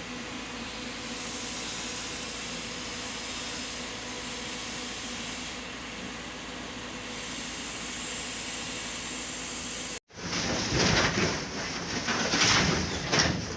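Heavy machinery's engine running steadily. About ten seconds in, the sound cuts out briefly and gives way to a louder, irregular rough clattering.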